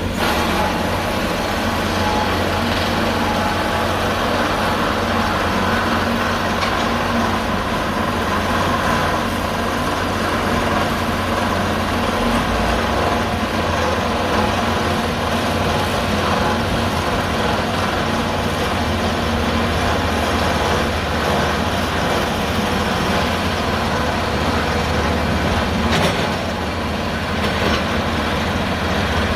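Heavy diesel construction machinery running steadily at a constant engine speed, with a brief sharp knock near the end.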